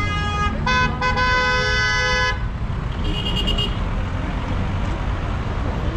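A car horn honking in two blasts, the second about a second and a half long, over steady city traffic rumble. A short, higher-pitched beep follows about three seconds in.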